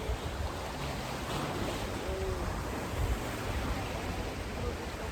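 Steady rushing outdoor noise with a flickering low rumble, typical of wind buffeting the microphone. Faint distant voices about two seconds in.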